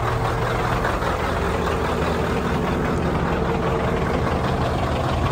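Scania V8 diesel truck engine idling steadily.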